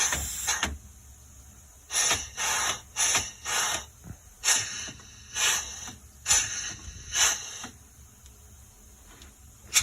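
Pneumatic animatronic figure's air valves and cylinders firing, each movement letting out a short hiss of escaping air. About a dozen hisses come in an irregular quick run, with a pause about a second in and a longer lull near the end.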